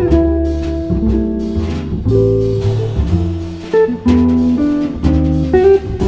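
A jazz guitar trio playing live: electric or acoustic guitar chords and single-note lines over a walking, sustained bass line.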